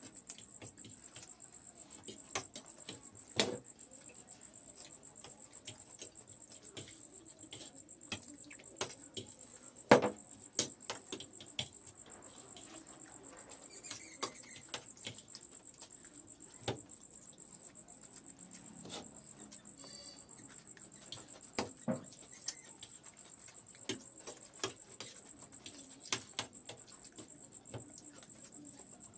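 Steady high trilling of crickets, with scattered short clicks and knocks of people eating noodles from plates; the sharpest knocks come about three and a half and ten seconds in.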